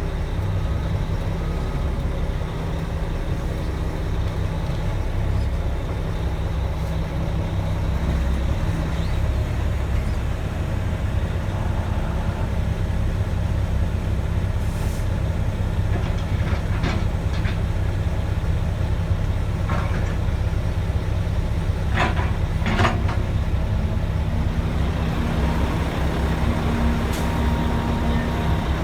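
Mack E7 inline-six turbo diesel in a Mack CH612 truck, running steadily with a deep, even rumble. A few short, sharp sounds come in over it in the second half.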